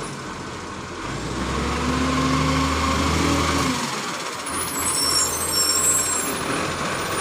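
Side-loading recycling garbage truck pulling up: its diesel engine swells for a few seconds and then falls away about four seconds in, followed by a brief high-pitched brake squeal as it stops.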